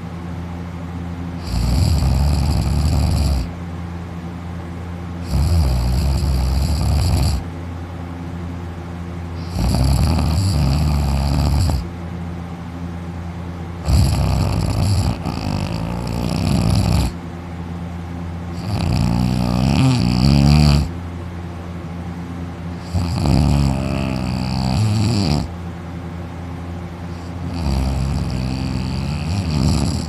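A man sleeping on his back with his mouth open, snoring loudly. There are about seven long snores, each two to three seconds long, coming roughly every four seconds, with a quieter steady low background between them.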